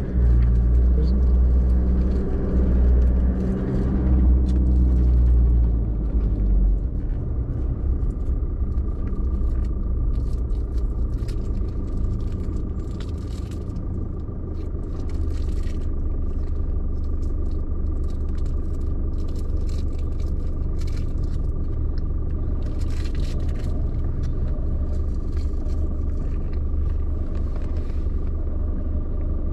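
Low rumble of road and engine noise inside a moving car, loudest for the first few seconds, then easing as the car slows. It settles into a steady low hum while the car sits stopped at traffic lights.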